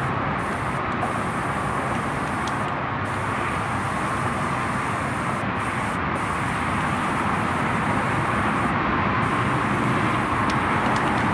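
A steady rushing noise with no breaks, a little louder in the second half.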